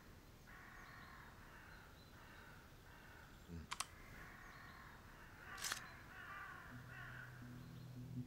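Faint crows cawing repeatedly, with two sharp metallic clicks from a single-action revolver being handled as its cylinder is turned, one about four seconds in and one about six seconds in. Soft low music comes in near the end.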